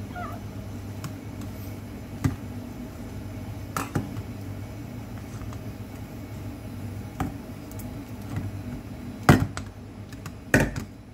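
Spatula mashing and stirring soft cream cheese in a stainless steel bowl, with a few sharp knocks of the spatula against the bowl, the loudest two near the end. A steady low hum runs underneath.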